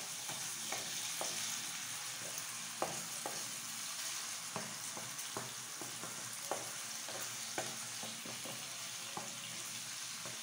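Chopped tomatoes sizzling in hot oil in a metal pan while a wooden spoon stirs them, knocking against the pan now and then.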